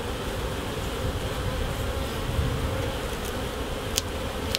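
Honeybee colony buzzing in a steady, dense hum from an open brood box as a frame is lifted out. The colony is gentle and is being worked without smoke. Two faint clicks come near the end.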